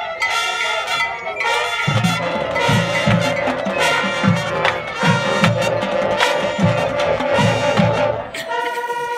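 High school marching band playing its field show, with brass, winds and percussion. A run of heavy low hits comes in about two seconds in, and near the end the low end drops away while a chord is held.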